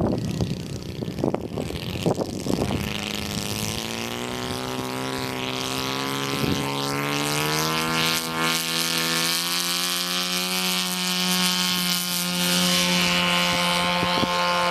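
Engine of a giant-scale RC warbird model airplane opening up for its takeoff run: a steady propeller drone that rises in pitch a few seconds in, then holds, growing louder toward the end.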